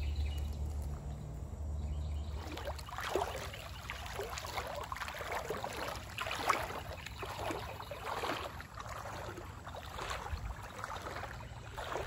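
Water sloshing and splashing in uneven surges as legs wade through a shallow, slow river, starting about two and a half seconds in. A low steady hum comes before that.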